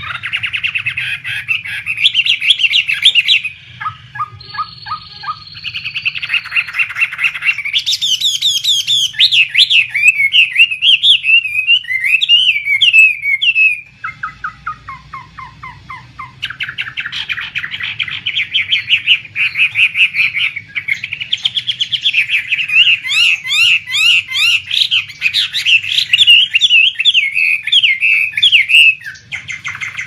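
Chinese hwamei singing: a long, loud run of fast, varied whistled phrases and trills, with short pauses about four seconds in and about halfway through.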